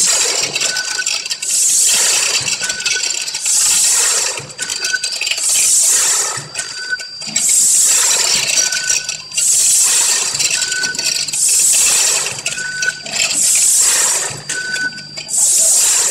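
Vertical form-fill-seal packing machine bagging dry dog food in a steady cycle about every two seconds. Each cycle has a rattling rush of kibble dropping through the forming tube into the bag and a short high beep.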